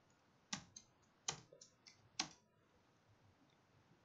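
Computer keyboard keystrokes: about six faint, separate taps over the first two seconds or so.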